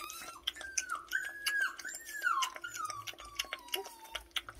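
A puppy lapping milk from a bowl: a quick, irregular run of wet clicking laps. Over it a dog whines in a high, wavering tone that slides up and down and falls away, stopping near the end.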